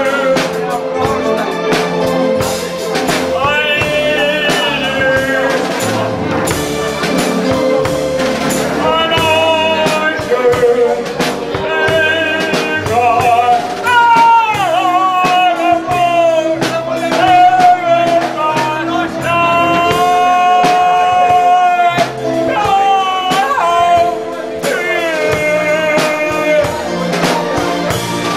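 An elderly amateur pub singer sings into a microphone over a backing track with bass and drums, his voice wavering and sliding between notes.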